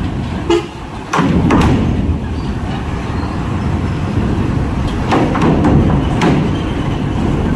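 Mitsubishi Fuso Super Great truck's diesel engine running as it creeps onto a ferry's steel loading ramp, with loud clanks and thumps from the ramp plates, a pair about a second in and several more around five to six seconds in.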